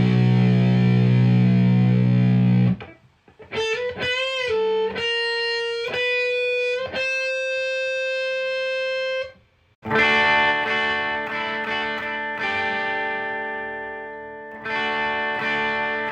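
Electric guitar played through a Marshall DSL1 amp and 2x12 cabinet, miked with an SM57. A held chord stops about three seconds in, then come a few single notes with vibrato and a long held note. After a brief gap, chords ring out.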